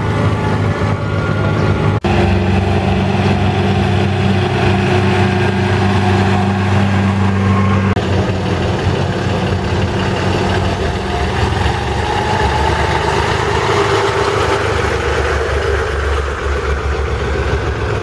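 Small vintage tractor's engine running steadily as it drives past. About eight seconds in, an old fire engine's engine takes over as the truck pulls past close by, with a rising whine a few seconds later.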